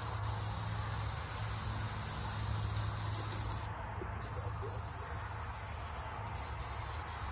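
Airbrush spraying gold leaf glue: a steady hiss of air and mist that cuts out briefly twice, about four seconds in and again near six seconds, over a steady low hum.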